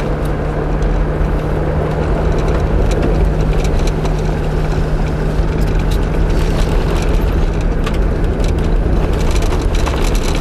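Steady low road and engine rumble of a moving car, heard from inside the cabin, with a constant hum and scattered faint clicks.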